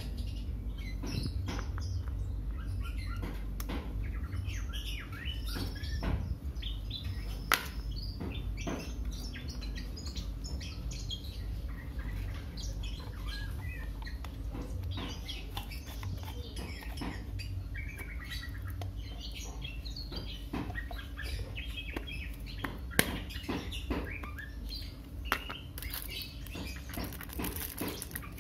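Small birds chirping repeatedly in the background, with a few sharp clicks from a small plastic-and-metal lamp being handled, over a low steady hum.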